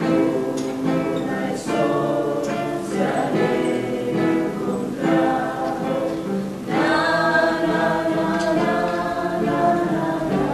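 A small group of voices singing a song together, with held notes, accompanied by an acoustic guitar.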